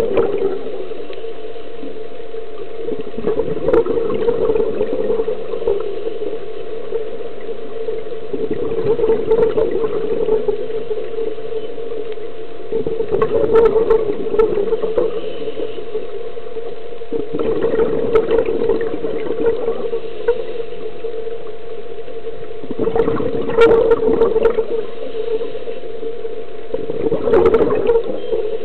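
A scuba diver's regulator exhaust releasing exhaled air underwater in gurgling bubble bursts, about every four to five seconds, heard through the camera's underwater housing. Under them runs a steady underwater hum.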